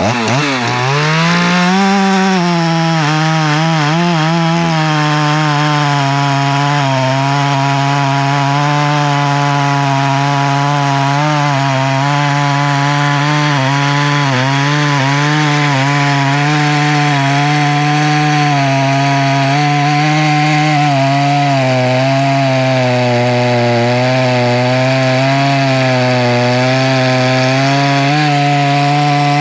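Poulan Pro Super 380 two-stroke chainsaw cutting through wood. The engine drops in pitch as the chain bites, holds a steady, slightly wavering lower pitch under load, then revs up sharply as it comes free at the end.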